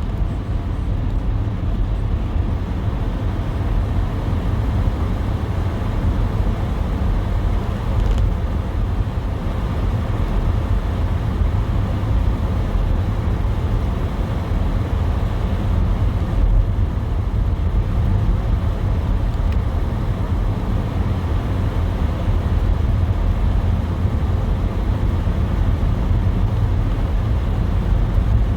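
Car driving steadily: a constant low rumble of engine and tyres on the road, with a softer hiss above it.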